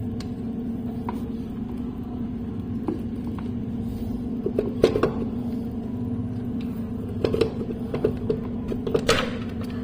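Scattered light clicks and knocks as a motorcycle's clutch case cover is handled and worked onto its gasket and dowel pins, most of them about five seconds in and again near the end, over a steady low hum.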